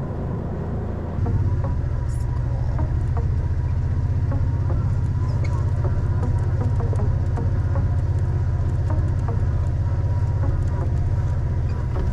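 Side-by-side UTV engine running steadily under way, its low drone getting louder about a second in, with small scattered knocks and rattles.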